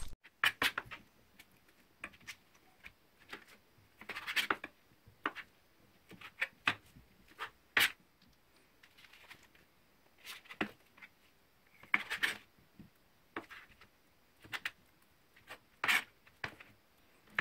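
Knife scraping and tapping on a cutting board, with raw bonito steaks being handled, as the dark blood clot is trimmed out of the slices. The sounds come as scattered short scrapes and clicks with pauses between them.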